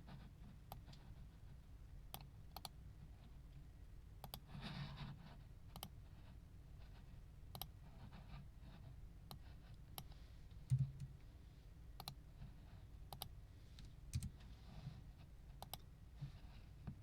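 Faint, irregular sharp clicks, with a soft brushing noise about five seconds in and a single thump near eleven seconds.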